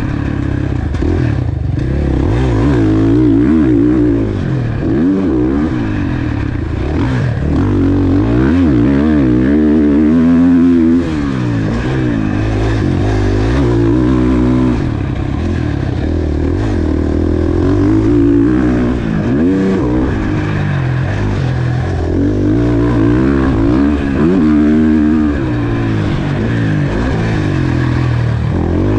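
KTM four-stroke motocross bike engine revving hard while it is ridden, its pitch rising and falling again and again as the rider accelerates, shifts and slows into corners.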